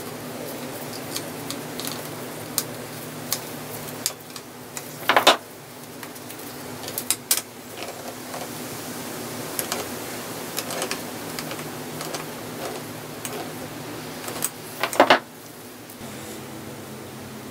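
Small clicks, taps and scrapes of the switch and cord assembly being worked into the sander's metal housing, with two louder knocks about five seconds in and near the end, over a steady low hum.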